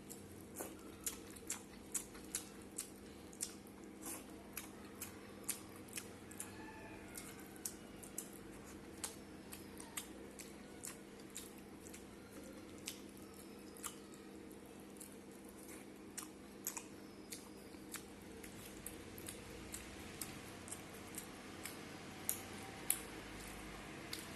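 A person eating rice and curry: chewing with frequent short, sharp mouth clicks and smacks, irregular, about one or two a second, over a steady low hum.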